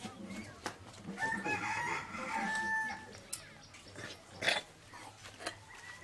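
A rooster crowing once: a drawn-out call starting about a second in and lasting about two seconds. A few sharp taps follow, the loudest about four and a half seconds in.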